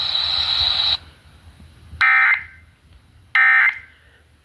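Emergency Alert System digital data tones: two short, loud, buzzy bursts a little over a second apart, the end-of-message signal that closes a relayed severe thunderstorm warning. Before them, radio hiss with a thin high whine cuts off about a second in.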